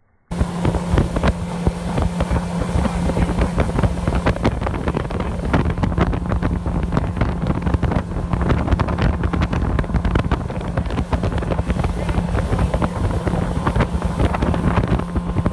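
Motorboat's outboard engine running at a steady speed, a constant drone, with wind buffeting the microphone.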